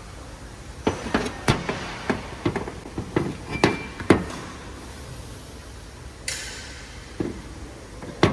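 A run of sharp, irregular knocks and clinks of hand tools against metal parts, then a short hiss about six seconds in and two more single knocks near the end.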